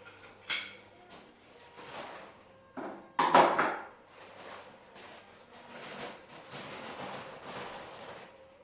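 Knocks and clatter from handling parts and tools while fitting garage door panels: a sharp knock about half a second in, a louder clatter about three seconds in, then lighter handling noise.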